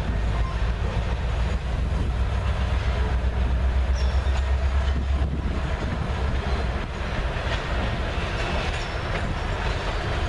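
Freight train's tank cars and covered hoppers rolling past, a steady low rumble with the clicking of wheels over rail joints. The rumble is heaviest in the first half.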